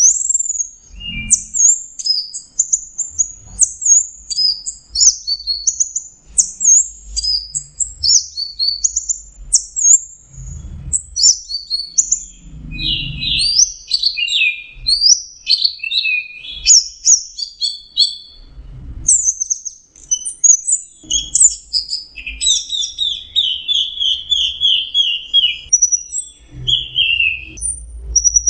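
Orange-headed thrush singing a long, unbroken, fast and varied song of high whistled chirps and trills, with lower rapid trilled runs in the second half.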